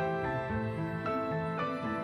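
Soft background music: a slow melody of held notes over a low bass line.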